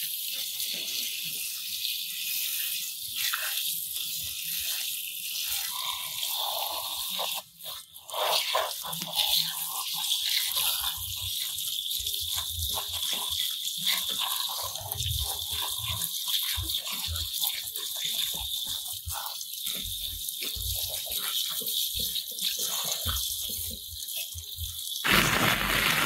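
Jet of water from a small handheld sprayer hissing steadily as it blasts mud off plastic toy trucks, with splashing and spatter off the toys and a brick wall. The spray breaks off briefly about seven seconds in, and comes in louder near the end.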